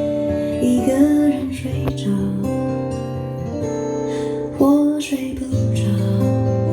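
Instrumental intro of a Chinese pop ballad played back through loudspeakers: strummed acoustic guitar over a steady bass line, before the vocal comes in.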